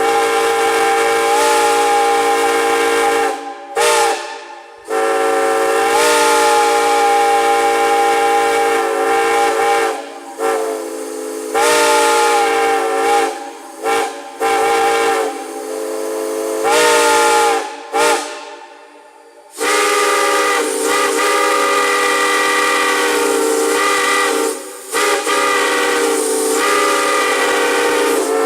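Chime steam whistle blown in a series of blasts, each sounding a chord of several tones with steam hiss. Most blasts are a few seconds long, with some short toots between them, and the pitch bends as the valve opens. About two-thirds of the way in, one long steady blast begins with a brighter chord.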